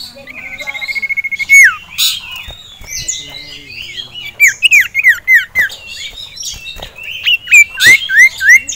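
A common iora sings loudly and excitedly. It gives a fast trill held on one pitch for over a second, ending in a sharp downward slur, then runs of quick down-slurred whistles, with a few sharp clicks between them.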